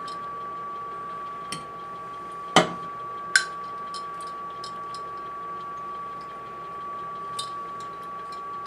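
A spoon or other utensil clinking against a plate or bowl while food is served: a light tap, then two sharp knocks about two and a half and three and a half seconds in, and a few faint ticks after. A steady high-pitched hum runs underneath.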